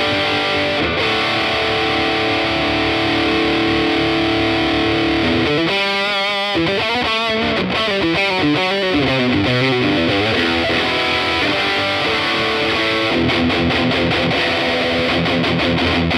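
Electric guitar played loud and distorted through a Laney CUB-Super 12 15 W all-tube combo with a single 12-inch speaker, driven hard by a Tube Screamer-style overdrive pedal, at gig volume. Held chords ring for about five seconds, then a quick single-note lick, then held chords again near the end.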